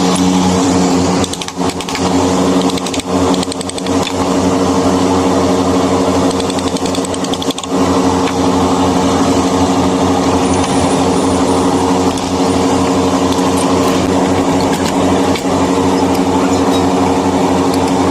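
An electric power tool's motor running steadily with a constant hum and a broad grinding noise, dipping briefly a few times in the first eight seconds.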